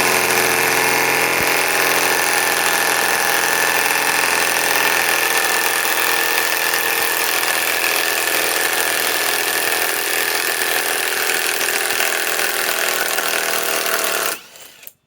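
Harbor Freight Hercules HCB84B2 half-inch cordless compact impact wrench running steadily as it backs a 4-inch lag screw out of wood, then stopping abruptly near the end.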